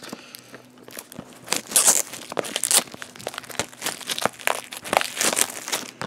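Plastic shrink wrap being torn and crinkled off a Blu-ray case: an irregular run of crackles and rustles, loudest a little under two seconds in.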